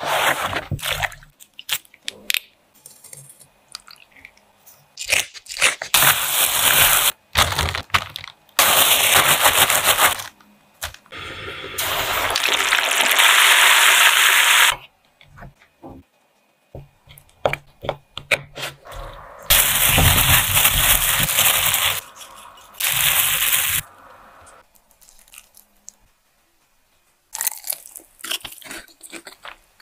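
Shrimp deep-frying in hot oil: several stretches of loud sizzling and crackling, each lasting a second or three, with scattered clicks and knocks of kitchen handling in the quieter gaps between them.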